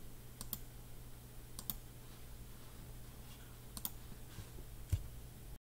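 Computer mouse clicks, a few quick ticks, mostly in close pairs, as the mouse button is pressed and released, over a faint steady low hum.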